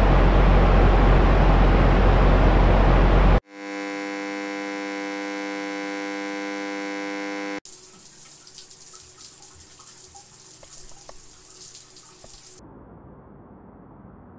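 Ambient sounds cut one after another: car road noise heard inside the cabin, a loud low rumble that cuts off suddenly about three seconds in; then a steady electrical-sounding buzzing hum for about four seconds; then a shower running, a hiss with scattered drips; and near the end a duller, muffled hiss.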